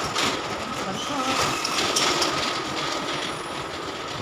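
Steady mall background noise: a mechanical hum with a thin, constant high whine, and faint voices of passers-by.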